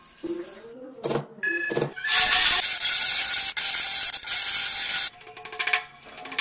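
A marker squeaking in short strokes on glossy ceramic tile. This is followed by about three seconds of an electric drill with a masonry bit boring through the tile, the loudest sound. A run of quick hammer taps comes near the end.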